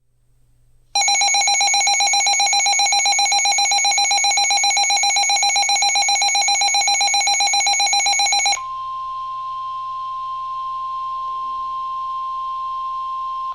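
A rapidly pulsing electronic alert alarm beeps for about seven and a half seconds. It then cuts to the steady single-pitched 1050 Hz NOAA Weather Radio warning alarm tone, the signal that a warning message is about to be broadcast.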